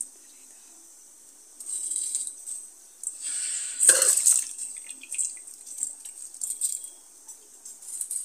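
Water and curry at a rolling boil in an open aluminium pressure cooker, bubbling and spitting in irregular bursts, with one louder thump about four seconds in.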